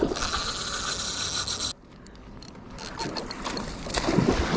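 Spinning reel being cranked steadily while fighting a hooked red (sockeye) salmon; the reeling stops abruptly under two seconds in. Near the end, water splashes as the salmon thrashes at the surface.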